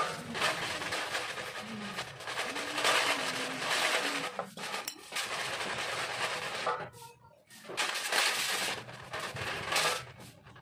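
Aerosol carburetor cleaner spraying onto carburetor parts in long hissing bursts, broken by a short pause about seven seconds in.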